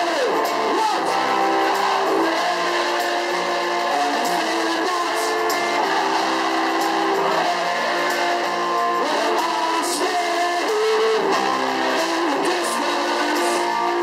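Live band music with guitar strumming.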